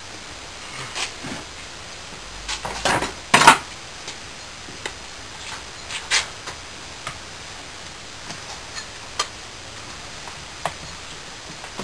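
Metal molding flask and tongs clanking and scraping as a freshly poured, still-hot casting is broken out of its sand mold: a cluster of loud metal knocks about three seconds in, then scattered lighter clinks.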